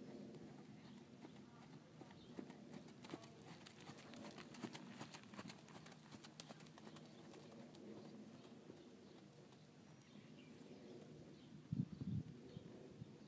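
A horse's faint hoofbeats on arena sand, loudest as it passes close about halfway through, then fading as it moves away. A brief louder low sound comes near the end.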